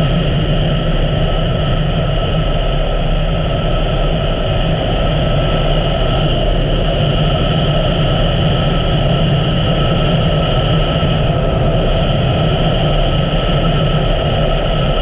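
A 2017 Honda Africa Twin's parallel-twin engine running at a steady cruise, its low rumble mixed with road and wind noise, unchanging throughout.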